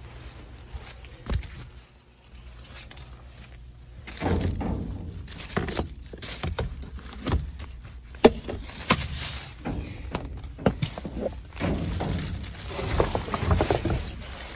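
Rummaging through plastic trash bags and cardboard boxes: rustling, knocks and thuds. It is quieter for the first few seconds and then gets busy, with a sharp knock about eight seconds in.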